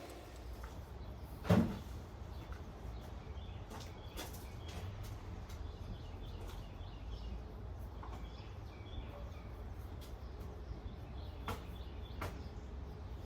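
Outdoor ambience: a steady low rumble of breeze on the microphone with faint bird chirps, broken by one sharp knock about a second and a half in and a couple of lighter clicks near the end.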